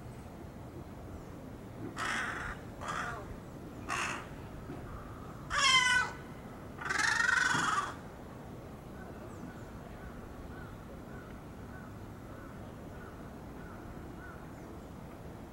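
Juvenile jungle crow calling: three short hoarse caws about a second apart, then two longer, louder calls, the last one drawn out.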